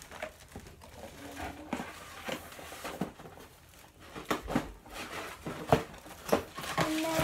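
Cardboard packaging being handled: irregular knocks, taps and rustles as boxes are moved and the inside of a cardboard shipping box is rummaged through.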